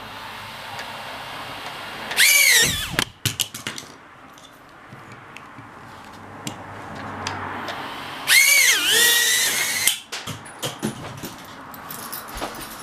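Small drone's electric motors spinning up in two short bursts, a high whine each time. The second burst runs about two seconds, its pitch dipping and rising again as the throttle changes. Light clicks and handling noise fall between the bursts.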